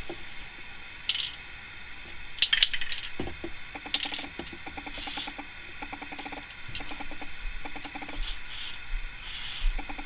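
An aerosol spray grease can hissing in several short bursts through its straw onto a record-player spindle, with bouts of fast light clicking in between.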